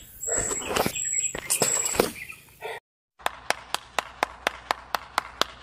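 One person clapping hands steadily, sharp evenly spaced claps about five a second, starting just after a brief drop-out about halfway through. Before it there is a stretch of rustling, noisy sound with a few short high tones.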